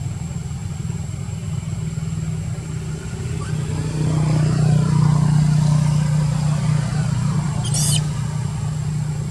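An engine running steadily with a low drone, growing louder for a few seconds in the middle as if passing close, with a brief high squeak near the end.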